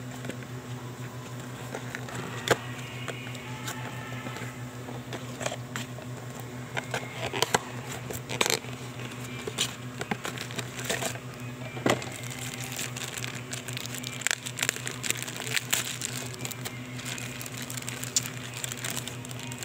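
A cardboard parts box being handled and opened, then the clear plastic bag around a new fuel filter crinkling: irregular crackles, rustles and taps, over a steady low hum.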